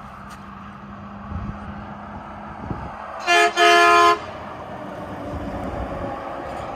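A semi truck's horn sounding two blasts about three seconds in, a short one then a longer one of about half a second, over the noise of the tractor-trailer's engine and tyres as it passes.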